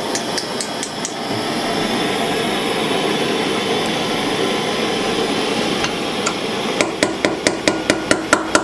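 Steady hiss of a gas soldering torch flame used for silver-soldering a metal eyeglass frame. Near the end comes a quick run of about ten light taps of a small metal tool against the frame.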